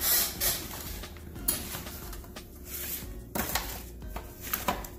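A few irregular clatters and scrapes of a utensil against a pan of fries, the loudest right at the start, over background music.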